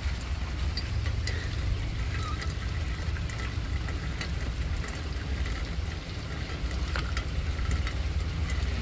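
Rain falling on a waterlogged yard, with scattered drops ticking, over a steady low rumble.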